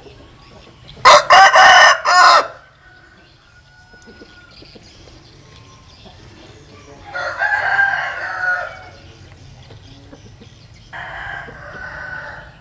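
A rooster crows loudly about a second in. Two fainter crows follow later.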